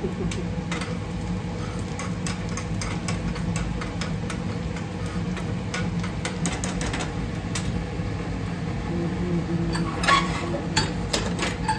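Egg frying in oil in a small pan on a gas stove, with scattered crackles over a steady low kitchen hum. About ten seconds in there is a louder metallic clatter as the lid is lifted off a steel pressure cooker.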